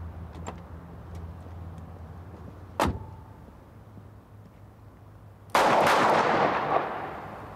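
A single sharp crack about three seconds in, then a loud burst of several gunshots in quick succession about five and a half seconds in, echoing and dying away over about two seconds.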